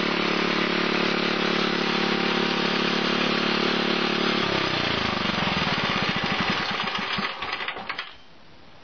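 Villiers petrol stationary engine running steadily, then shut down: about four and a half seconds in its note falls, the firing beats spread out as it slows, and it comes to a stop about eight seconds in.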